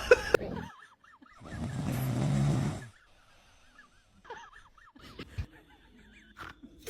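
A sleeping dog giving one long breathy snore, about a second and a half long, with faint high wavering tones before and after it.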